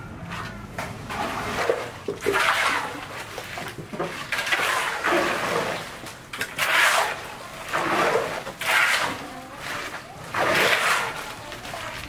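Wet concrete tipped from buckets into a ground-beam formwork and worked with a shovel: a slop and splash every second or two, with scraping.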